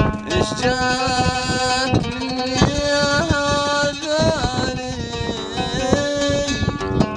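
Middle Eastern music: plucked oud strings, with a long held melody line that bends in pitch running over them for most of the stretch.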